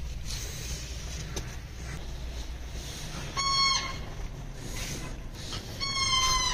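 Two short, high-pitched animal calls, about two and a half seconds apart, over faint background noise.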